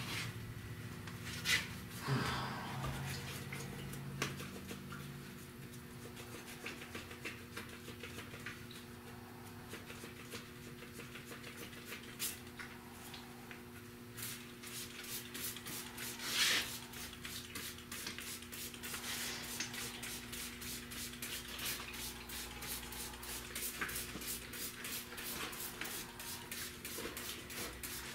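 Hand trigger spray bottle giving a few short squirts of prep cleaner onto a fiberglass truck cap, with a quick, even run of scuffing strokes, a few a second, through the second half, over a steady low hum.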